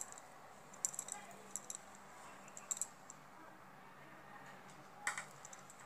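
Faint, scattered small clicks from hand crochet work: a metal crochet hook being worked through wool yarn by hand, with a few light ticks in small clusters.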